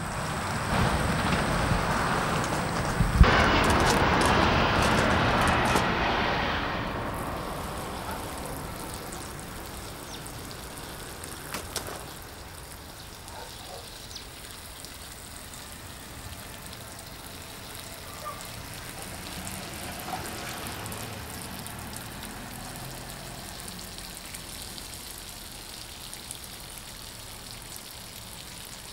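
Water spraying from the Nemo Helio Pressure Shower's handheld trigger nozzle and pattering onto grass and gravel. The spray is loudest for the first several seconds, then settles to a softer, steady patter as the foot-pumped tank loses pressure.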